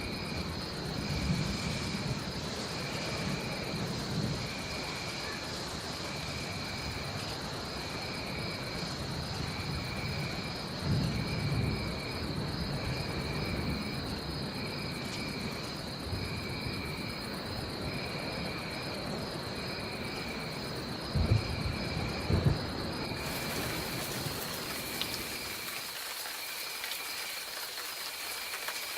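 A jungle rainstorm: steady rain with low rolling thunder three times, over a continuous high-pitched insect drone and a short chirping call repeated about once a second.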